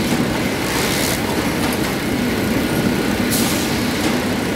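GHD Hartmann AUTOMAT PP 30 pillow-pack flow-wrapping machine running steadily, with a high hiss at the start and again from about three seconds in.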